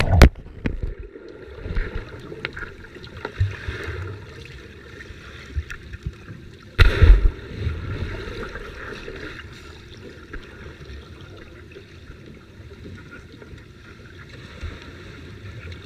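Muffled underwater sound of swimming-pool water heard from a submerged camera: a low, steady rumble with bubbling, a sharp knock just after the start and a loud splash-like surge about seven seconds in.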